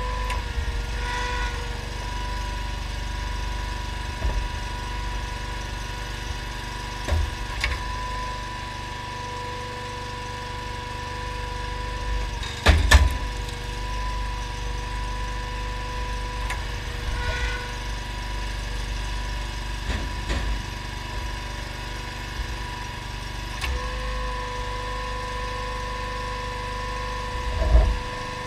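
Honda GX690 V-twin engine running steadily on a homemade hydraulic log splitter, with a steady whine over a low rumble. A few sharp knocks and cracks of wood being split and handled, the loudest about 13 seconds in and another near the end.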